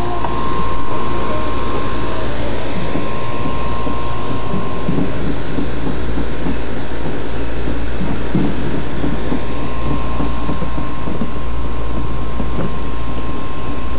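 Outdoor air-conditioning condenser unit running: a steady, unbroken drone with a constant high tone over it.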